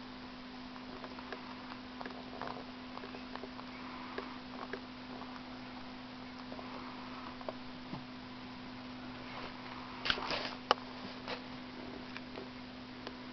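Faint purring and breathing of a Siamese cat held close to the microphone, under a steady low hum. A few sharp clicks and rustles come about ten seconds in.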